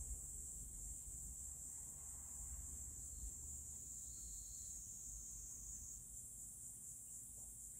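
Faint, steady high-pitched insect chorus, taking on a slight pulsing about six seconds in, over a low rumble.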